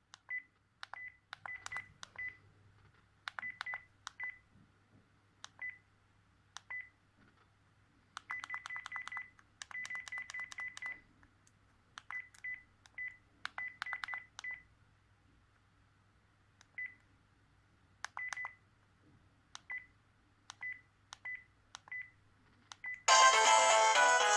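Sharp V703SH mobile phone's keys clicking as they are pressed, each press answered by a short high beep, sometimes singly and sometimes in quick runs of presses. Near the end a ringtone starts playing loudly.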